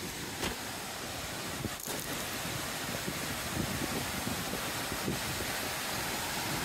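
Steady rush of a fast-flowing, white-water mountain creek, with wind buffeting the microphone.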